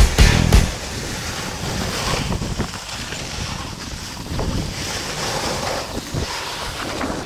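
Rushing wind on the microphone and the hiss of a snowboard sliding over packed snow, after rock music cuts off about half a second in.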